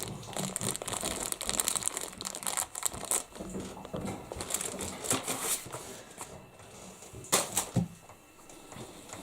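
Packaging being crinkled and handled, an irregular run of crackles and rustles as a package is opened, with one sharper, louder crackle near the end.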